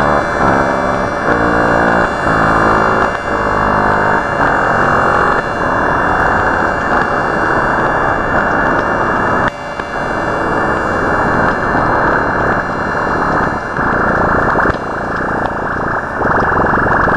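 Loud, harsh electronic static and distortion, like a disrupted broadcast signal. In the first five seconds it carries stacked tones that jump in pitch in steps. After that it is a dense rush of noise with a brief break about nine and a half seconds in.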